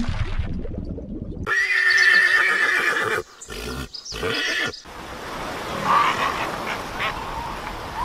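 Horses neighing: a loud, long whinny starts abruptly about a second and a half in, followed by shorter neighs broken by sudden cuts.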